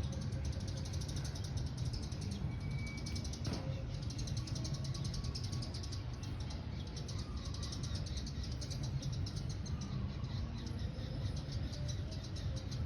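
Small birds chirping rapidly and continuously, with a few faint short calls, over a steady low rumble.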